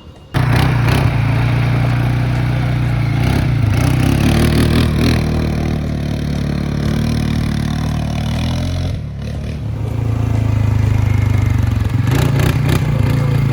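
ATV (quad bike) engine running under way, its pitch shifting up and down with the throttle, easing off briefly about nine seconds in before picking up again.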